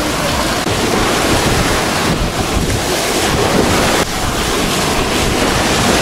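Small Black Sea waves breaking and washing up over a sandy shore in a steady rush of surf, with wind buffeting the microphone.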